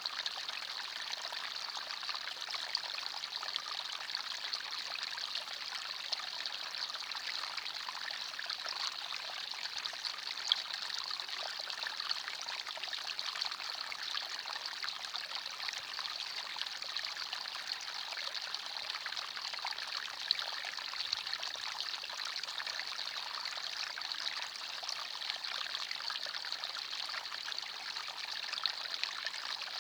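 Small forest stream running over stones, a steady babbling trickle with the odd louder splash.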